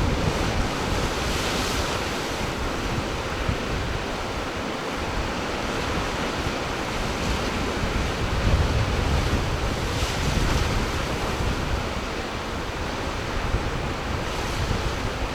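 Ocean surf washing in, with wind gusting on the microphone in low rumbles; the surf swells up about a second and a half in and again about ten seconds in.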